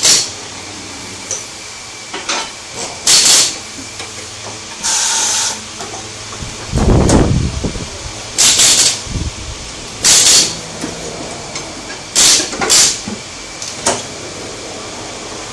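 Compressed air hissing in about eight short bursts from pneumatic tyre-shop equipment, with one slightly longer, steadier blast about five seconds in.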